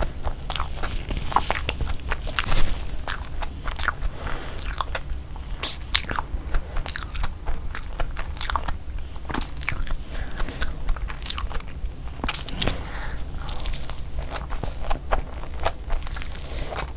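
Close-miked eating sounds of a person biting and chewing a gravy-dipped burger: wet mouth clicks and soft crunches at an irregular pace, over a low steady hum.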